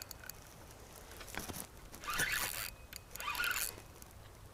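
Fishing reel drag buzzing in two short bursts, about two and three seconds in, as a hooked carp pulls line off the reel.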